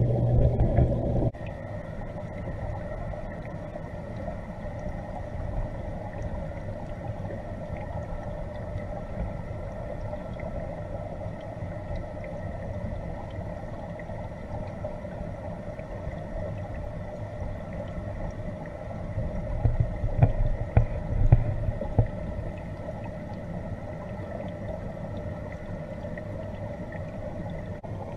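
Steady underwater hum of a koi pond's pumps and filtration, with several constant tones over a low rumble, picked up by a submerged camera. A louder low hum cuts off just over a second in, and low knocks and rumbling rise around twenty seconds in.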